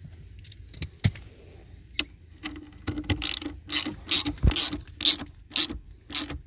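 Socket ratchet with a 10 mm socket tightening the nut of a car battery's terminal clamp, its pawl clicking in short runs of strokes. The clicks come a few at a time at first, then about two a second through the second half.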